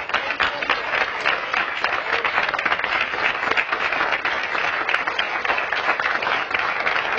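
Congregation applauding: many people clapping their hands in a steady, dense patter that neither builds nor dies away.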